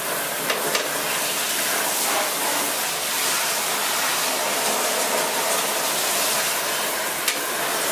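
Hand shower spraying a steady stream of water onto the plastic base of an HP DeskJet 2130 printer lying in a bathtub: an even hiss of running water, with a few small clicks.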